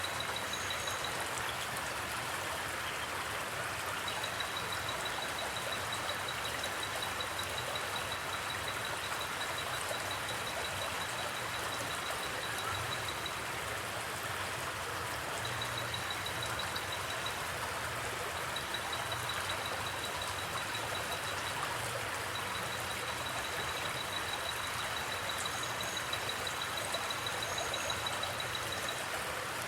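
River water flowing steadily, with a cricket chirping in fast pulsed trills that come in runs of a few seconds and then pause.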